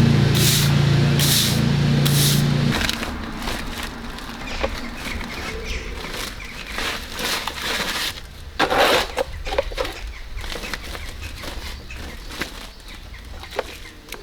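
A steady machine hum, with regular hissing pulses a little under once a second, cuts off abruptly about three seconds in. It is followed by quieter, scattered knocks and rustles.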